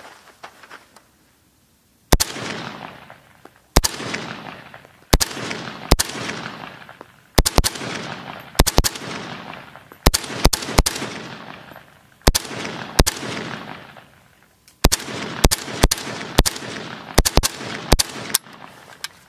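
An AK-47-pattern rifle in 7.62×39mm with a PWS muzzle brake fires about twenty shots, singly and in quick pairs, starting about two seconds in. Each report is followed by a long fading echo. This is the first test-fire of a newly assembled rifle, and it keeps firing without a stoppage.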